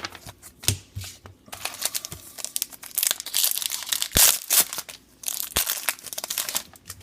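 Foil trading-card pack wrapper being torn open and crinkled in the hands: a dense run of crackling that starts about a second and a half in, peaks in the middle and stops shortly before the end.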